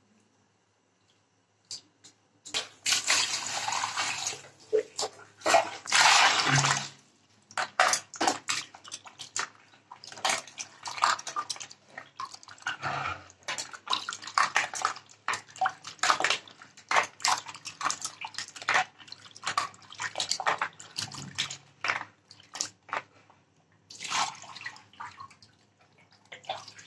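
Water sloshing and splashing irregularly in a plastic basin as hands rub and turn cut catfish pieces in it. Near the end the basin is tipped and water pours out.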